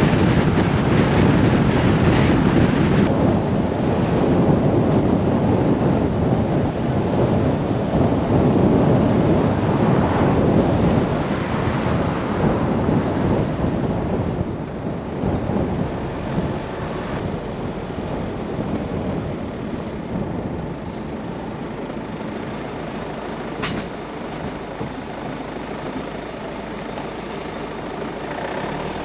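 Steady road and wind noise from a car driving, a dense rushing noise heaviest in the low end, easing off about halfway through.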